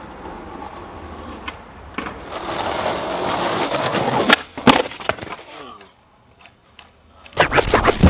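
Skateboard wheels rolling on rough street pavement, getting louder as the skater comes closer. About four seconds in come a few sharp clacks: the board being popped and landing.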